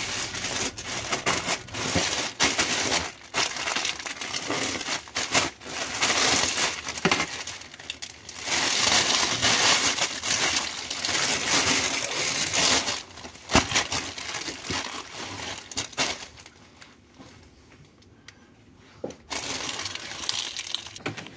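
Plastic courier mailing bag crinkling and rustling in irregular bursts as it is handled and opened, with occasional sharp crackles; the rustling dies down for a few seconds near the end.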